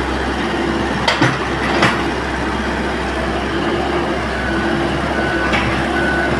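Komatsu hydraulic excavator working, its diesel engine running steadily. Sharp metallic knocks come about a second in and again shortly after, and a few brief high squeals sound near the end.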